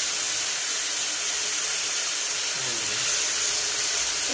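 Butter and marinated chicken thighs sizzling in a hot grill pan: a steady hiss.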